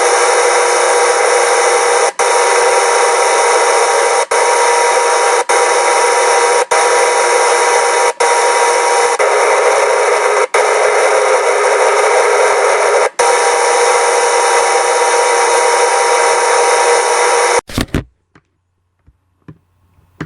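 Loud, steady hiss with a few faint steady tones running through it. It drops out for an instant several times, then cuts off suddenly near the end, leaving near silence.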